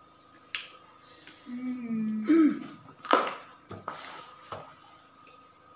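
Cardboard food boxes handled on a table, with a few light knocks, a short hummed voice sound a couple of seconds in, and a sharp burst a little past halfway that is the loudest sound.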